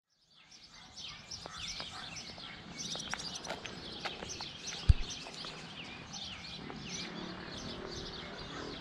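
Many small birds chirping and singing together in a dense, continuous chorus of short high calls. A single low thump about five seconds in stands out above it.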